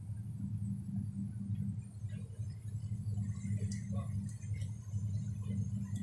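Water from a hose rinsing packed ice off a frosted refrigerator evaporator coil: scattered small clinks, crackles and drips from about two seconds in, over a steady low hum.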